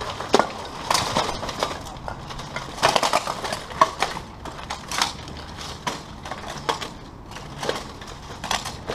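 Steel plate armour clanking and knocking as two armoured fighters strike and grapple: sharp metallic knocks at irregular intervals, with a dense cluster about three seconds in.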